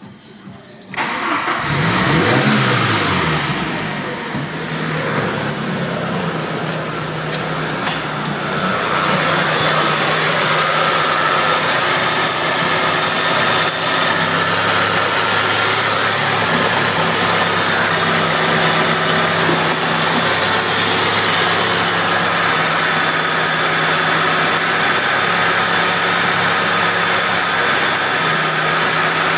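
Peugeot 406 2.0i RFV four-cylinder petrol engine starting about a second in, its revs flaring up and falling back, then idling steadily. From about nine seconds in it is heard louder and closer, as from the open engine bay.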